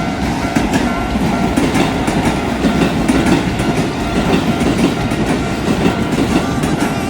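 Keisei Electric Railway train passing through a level crossing, its wheels clattering hard and rapidly over the rail joints inside the crossing, over a steady rumble. The crossing's warning bell rings in the first second or so.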